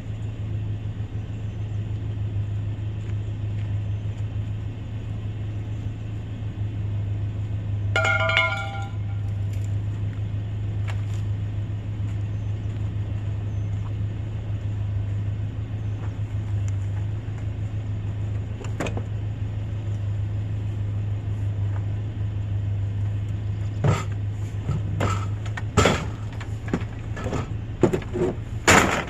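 A vehicle engine runs with a steady low drone. A brief high squeal comes about eight seconds in, and several sharp knocks and clatter come near the end.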